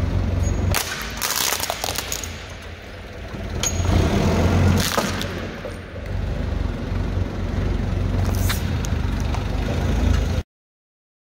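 A forklift's engine runs with a steady low rumble as its solid tyre rolls over and crushes hard, brittle objects, and sharp cracks ring out several times as a clear case shatters into shards. The sound stops abruptly near the end.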